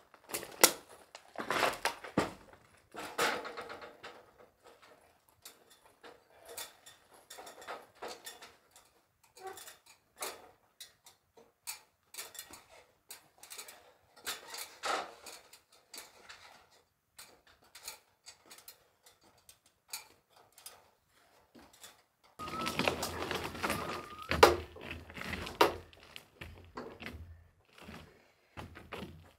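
Irregular knocks, clanks and footsteps as a steel I-beam is carried up an aluminium ladder. About two-thirds of the way through there is a denser stretch of clanking and scraping.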